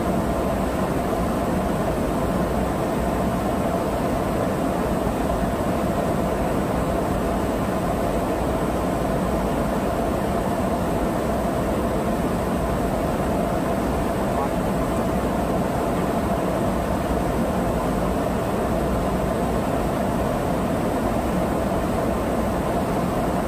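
Steady in-flight cabin noise of a KC-135R tanker heard at the boom operator's station: an even wash of airflow and engine noise with a steady hum, unchanging in level.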